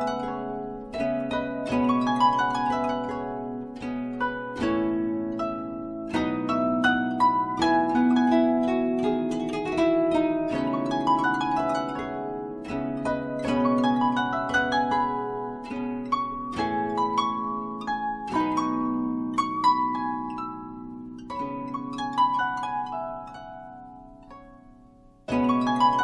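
Instrumental background music of plucked notes ringing over a melody and bass. It fades low just before the end, then comes back in loudly.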